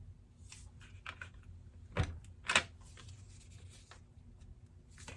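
Scattered light clicks and taps of small plastic bead containers being handled as labels are stuck on, the sharpest tap about two and a half seconds in.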